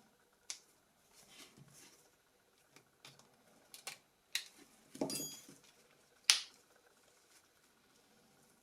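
Scattered light clicks and taps of small phone parts and tools being handled, with a short rustle about five seconds in and the sharpest click just after six seconds.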